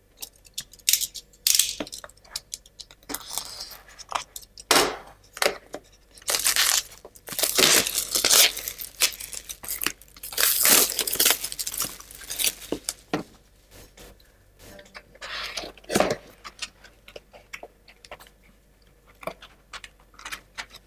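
A cardboard box being opened and unpacked by hand: cardboard sliding and rubbing, a plastic bag rustling, and light taps and clicks as the thin plywood kit sheets are handled. Two longer, louder swishes come near the middle, and the handling grows quieter after that.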